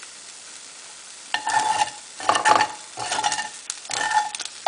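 Scrambled eggs frying in a nonstick pan with a faint sizzle. From about a second in, a utensil scrapes and stirs them around the pan in four short strokes.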